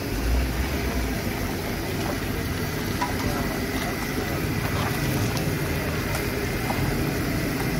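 Steady low rumble of motor vehicle engines running and idling in street traffic.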